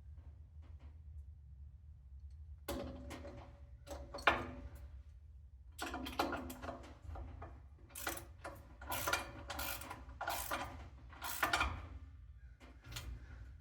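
Irregular clanks, rattles and knocks of metal table saw parts and hand tools being handled during assembly, coming in short clusters that are busiest in the second half, over a steady low hum.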